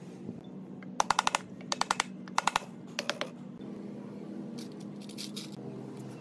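Ratchet wrench clicking in four short, quick runs, each a handful of sharp metallic clicks, followed by a softer scraping sound.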